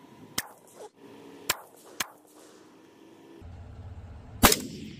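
A single loud AR-15 rifle shot near the end, with a short ring-out, preceded by three fainter sharp cracks in the first two seconds.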